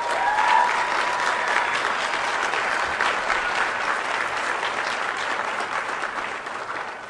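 Audience applause filling a hall, many hands clapping at once, with a long whoop rising in pitch at the start; the clapping thins and fades near the end.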